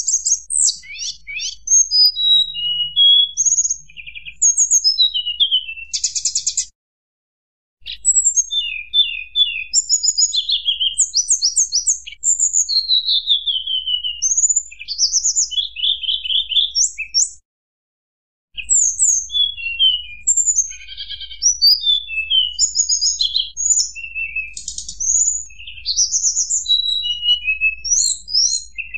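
Tledekan gunung songbird singing a rapid, varied run of high whistled notes and trills, some rising, some falling, in a flute-like (nyuling) style. The song breaks off twice for about a second.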